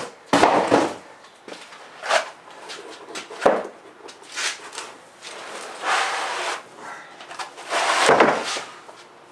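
Packing foam blocks being pulled off a metal hitch adapter and moved about: a series of short rubbing and scraping noises, with one sharp knock about three and a half seconds in.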